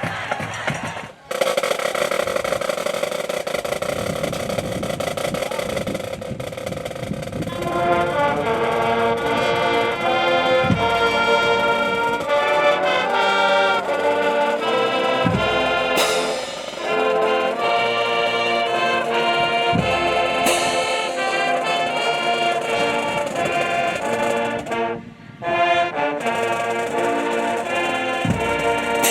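A high school band's brass section playing, with trombones and trumpets carrying the tune, broken by short gaps about a second in and near the end.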